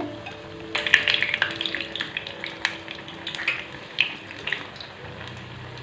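Besan-battered bread pakoras deep-frying in hot oil, a steady sizzle with crackles and pops that grow busier about a second in. A utensil stirs and turns the pieces in the oil.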